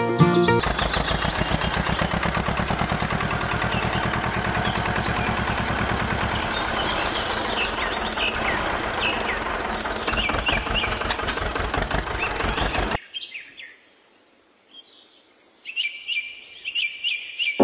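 A small engine running at a fast, steady beat, with birds chirping over it. Near the end it cuts off abruptly and only birds chirping remain, quieter.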